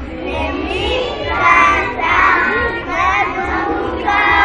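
A crowd of young children's voices, many high voices singing and calling out at once.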